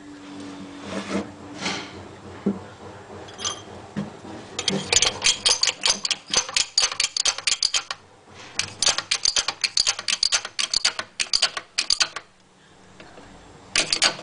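Ratchet wrench clicking in quick runs as it turns the nut of a threaded-rod bushing puller on a subframe bushing. The runs stop briefly twice. A few scrapes and knocks of the metal puller parts being fitted come first.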